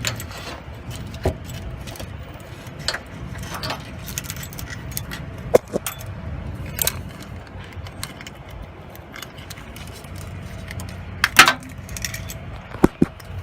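Scattered metallic clinks and taps of hand tools and clutch-cable hardware being fitted at the transmission end of a Porsche 914's clutch cable, over a steady low rumble. The loudest clink comes near the end, followed by two sharp ticks.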